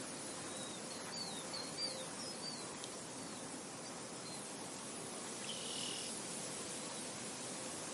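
Outdoor nature ambience: a steady hiss of wind with insects, over which birds give short chirps. There is a quick run of about four chirps between one and three seconds in, and a brief buzzy call about five and a half seconds in.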